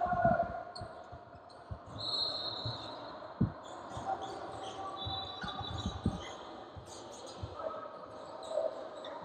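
Basketball dribbled on a hardwood gym floor: irregular bounces, the loudest about three and a half seconds in and a quick run of them around six seconds. Sneakers squeak on the floor twice, about two and five seconds in.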